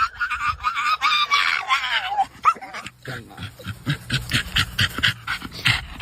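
A dog whining and yelping in a wavering high pitch for about the first two seconds, followed by a quick run of sharp clicks or taps, several a second.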